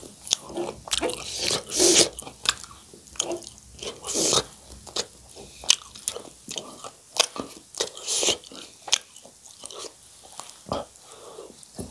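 Close-miked eating of spicy instant noodles with chopsticks: chewing and biting with many short wet mouth clicks, and a few longer hissy slurps of noodles.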